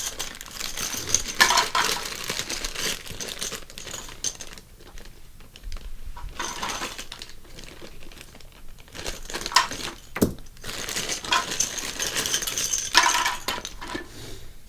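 Small toy building pieces rattling and clicking as they are handled, with some crinkling. The clatter comes in several spells with short lulls in between.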